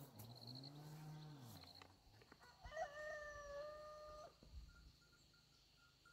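Faint rooster crow about three seconds in, ending on one long held note. Before it comes a low, drawn-out call that rises and falls twice.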